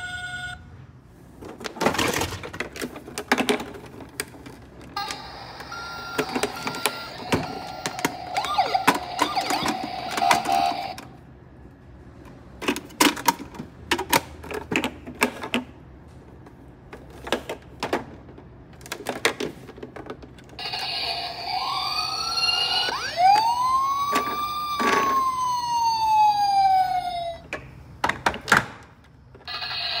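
Plastic toy ambulances being handled, with scattered clicks and knocks. For several seconds about a fifth of the way in, a toy plays steady electronic tones. In the last third a battery toy ambulance's electronic siren wails, gliding up and then falling slowly.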